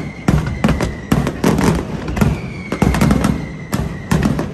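Aerial fireworks display: a rapid string of shell bursts, loud bangs about two or three a second with crackle between them. About two seconds in, a thin high whistling tone starts, sliding slightly down in pitch as it goes.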